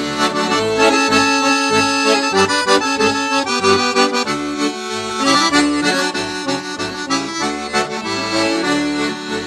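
Instrumental break in a Romanian Christian worship song: a melody in long held notes with chords over a bass that pulses on a steady beat, with no singing.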